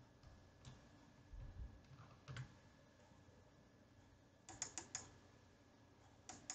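Faint computer mouse clicks over a low steady hum: a couple of single clicks, then a quick run of clicks about four and a half seconds in, and one more near the end.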